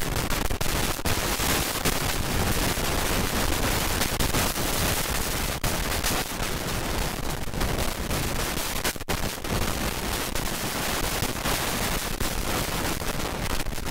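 Hurricane-force wind blasting the microphone: a loud, steady rush of noise broken by frequent crackling pops, with the surf of the storm surge washing underneath.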